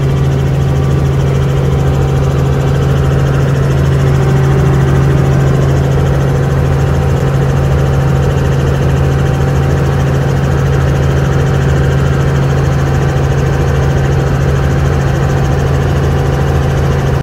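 Helicopter cabin noise in level flight: the engine and rotor make a steady, loud drone with a strong, unchanging low hum.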